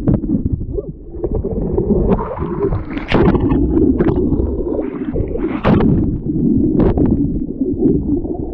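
Wind buffeting the microphone, with water sloshing and splashing in irregular sharp bursts.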